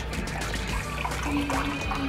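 Chicken broth pouring and trickling from a carton into a glass measuring cup, over background music.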